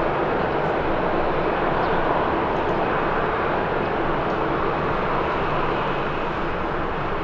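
Boeing 767-300ER on final approach, its jet engines giving a steady, even rush of noise at approach power.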